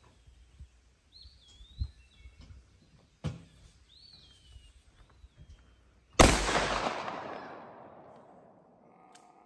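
A single shot from a Smith & Wesson 629 Classic .44 Magnum revolver with an 8 3/8-inch barrel, about six seconds in, its report rolling away in a long echo over about three seconds. Before it, birds chirp and there are two faint knocks.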